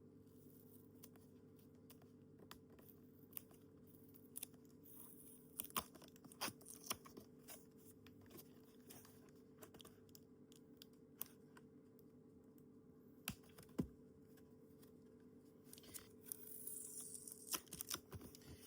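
Faint handling of a cardboard box and its packaging being prised open: scattered clicks and scratches, with brief tearing and crinkling about six seconds in and again near the end, over a steady faint hum.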